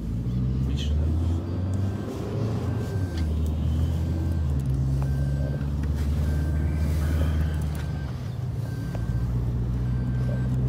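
Inside a moving car's cabin: a steady low rumble of engine and road noise. A faint short beep repeats about once a second over it.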